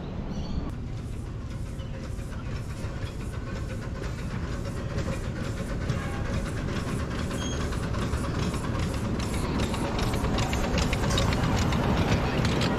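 A 7¼-inch gauge miniature steam locomotive hauling open passenger cars approaches and runs past, growing steadily louder, with a rapid regular beat of about three clicks a second.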